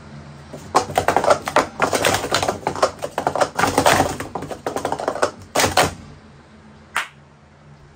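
Wooden sport-stacking cups clattering in a fast, dense run of clicks and clacks for about five seconds as a cycle is stacked and unstacked at speed. One more single tap follows about a second later.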